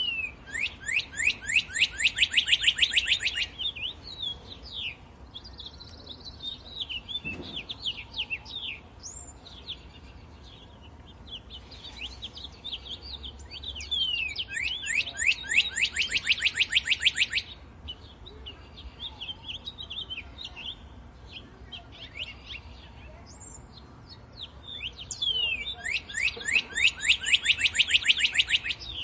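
Birdsong: one bird repeats a loud, fast trill of quick downward-sweeping notes, each trill about three seconds long, three times roughly twelve seconds apart. Other birds chirp more softly in between.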